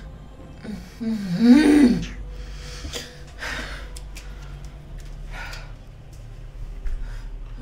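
A person's voice: a short, strained cry whose pitch rises and falls about a second in, followed by several heavy, gasping breaths.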